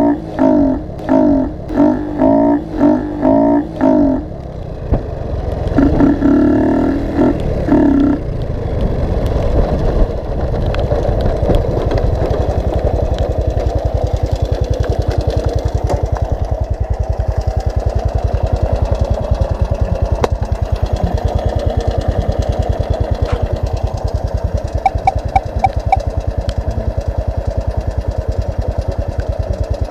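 Honda Wave 110i's single-cylinder engine, breathing through an open intake with no air-filter box: throttle blipped in rhythmic surges twice in the first eight seconds, then settling into steady running with an even firing pulse. Four short beeps sound later on.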